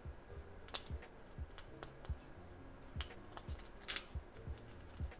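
Clear plastic ornament ball and its metal cap clicking and tapping as the cap's wire prongs are worked back into the ball's neck, with a couple of sharper clicks about a second in and near four seconds in.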